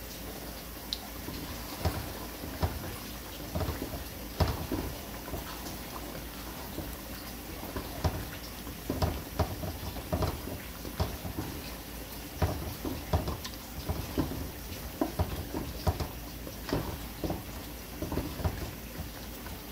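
Spatula stirring a thick chicken and daal curry in a large aluminium pot: irregular soft knocks and scrapes of the spatula against the pot, with the wet sauce squelching, over a steady low hiss.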